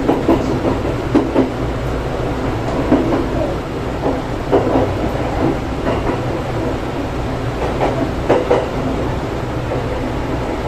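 Running noise inside a 285-series sleeper train car: a steady low rumble with scattered knocks, some in quick pairs, as the wheels pass over rail joints.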